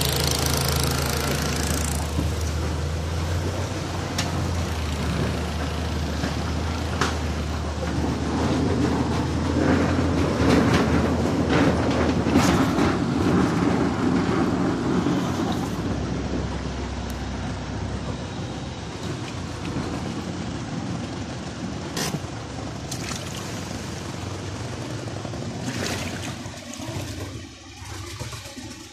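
Car driving slowly through deep floodwater: the engine hums under a steady swishing and rushing of water against the car, fading near the end.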